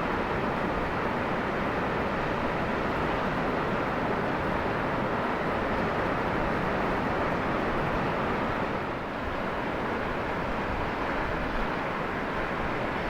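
Steady rushing noise of ocean surf breaking on the beach, with wind on the microphone, dipping slightly about nine seconds in.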